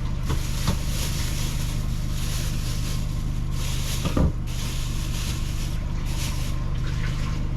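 A steady low hum under a rushing hiss, with a few light knocks of kitchen work: two near the start and one about four seconds in.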